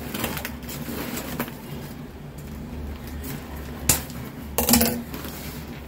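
Tight plastic delivery packaging being pulled and torn open by hand, rustling and crinkling, with a sharp knock just before four seconds in and a louder crackling burst just after it.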